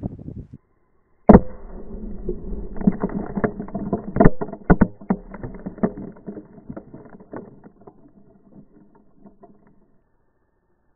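A Tannerite explosion goes off with a single loud blast about a second in. It is followed by several seconds of scattered knocks and clatters as debris comes down, thinning out and fading to nothing.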